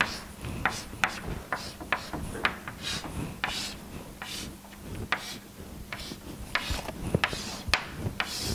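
Chalk drawing on a chalkboard: a run of short scraping strokes, irregular at about two or three a second, as the lines of a diagram are drawn.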